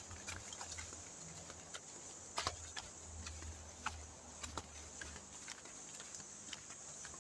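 Faint outdoor ambience: a steady high-pitched drone with scattered light clicks and taps.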